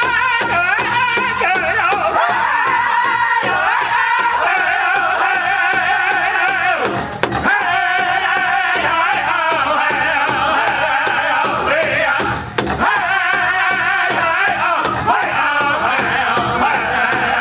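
Powwow drum group singing a high-pitched song together while beating steadily in unison on a large shared hide drum with drumsticks.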